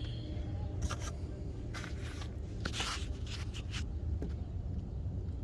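A few irregular short clicks and scrapes of parts being handled under the hood, over a steady low hum.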